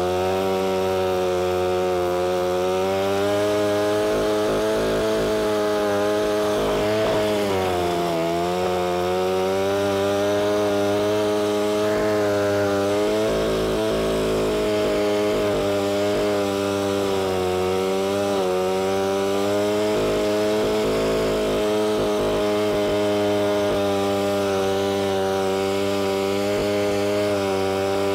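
Alpine Magnum portable stump grinder's engine running at high speed under load while its trenching cutter digs a shallow trench through turf and soil. The engine note wavers a little and dips briefly about seven seconds in.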